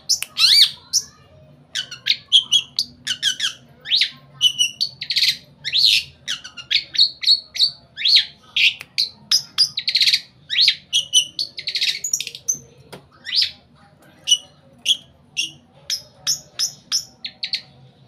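Long-tailed shrike (pentet) singing a loud, rapid, varied song of short chirps and whistles, many sliding up or down in pitch, strung together with only brief pauses; a full-repertoire song carrying mimicked material.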